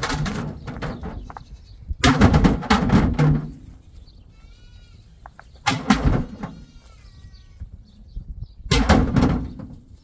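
Rocks clattering and thudding as they are picked up and tossed into a wooden tractor trailer, in four loud bursts, the second one longest. Faint bleating can be heard in the pauses between them.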